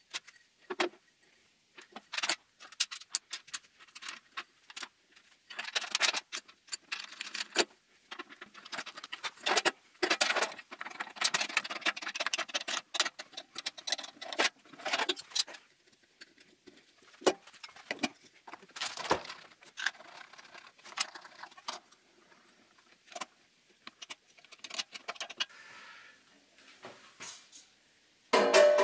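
Irregular metallic clinks, clicks and short rattles of a spanner, bolts and small fittings as a return line filter housing is bolted onto a steel hydraulic oil tank.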